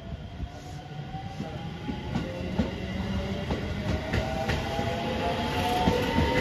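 JR Shikoku 7000 series electric train pulling away: the whine of its inverter and traction motors rises steadily in pitch as it gathers speed. Wheels click over the rails beneath it, and the sound grows louder as the cars pass.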